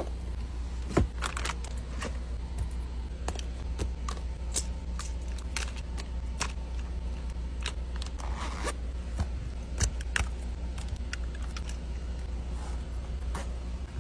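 Small items being handled and set down during a restock: scattered sharp clicks and short scrapes, with a zipper-like rasp, over a steady low hum.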